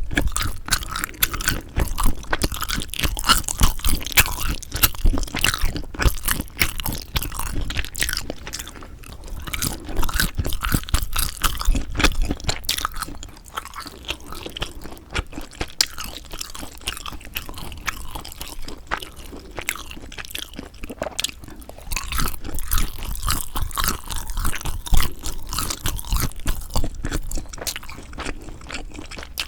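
Close-miked chewing of sundae (Korean blood sausage), a dense run of wet clicks and crunches that grows louder in stretches.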